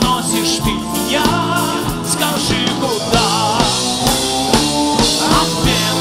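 A song with a singer's voice over a steady drum beat and bass.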